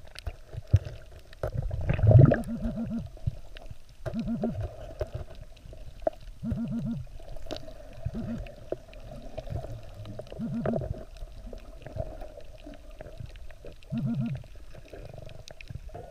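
Muffled underwater sound as a diver probes and digs in the sand with a metal-detecting pinpointer: short buzzy bursts about every two seconds over a low steady hum.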